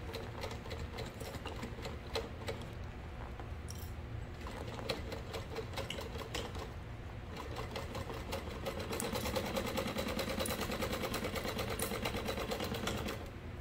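Industrial sewing machine stitching a second line along a seam through faux leather, at first at a moderate pace with separate stitch strokes, then faster and louder from about two-thirds in, stopping just before the end.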